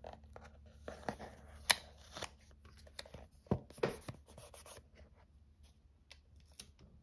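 Cardboard knife box being handled and opened: light scrapes, rustles and taps of the box, with a sharp tick a little under two seconds in.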